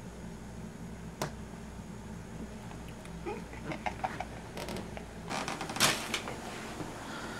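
Quiet rustling and scattered small clicks as someone creeps through a dark room, over a steady low hum. There is a sharp click about a second in and a louder rustle near the end.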